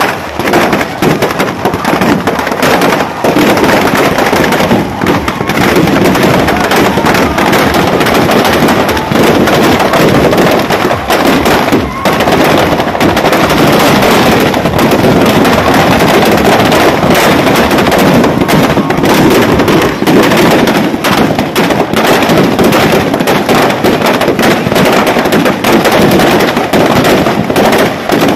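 Firecrackers packed into a burning Ravana effigy going off in a loud, continuous barrage of rapid bangs and crackles.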